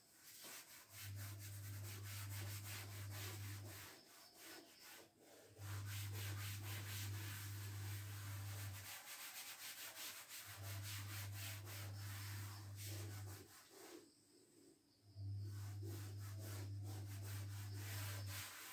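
A cloth duster is rubbed back and forth across a chalkboard, wiping off chalk writing. It comes in four bouts of a few seconds each, with short pauses between them, and a low drone sounds under each bout.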